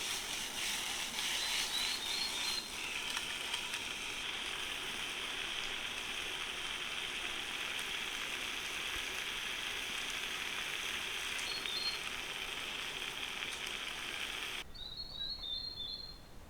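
Steady outdoor rushing hiss with a few brief high bird chirps, cutting off suddenly near the end, after which short twittering bird calls are heard.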